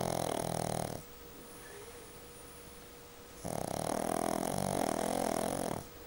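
A pug snoring: one snore ending about a second in, then a longer snore starting about three and a half seconds in, with quiet breathing between.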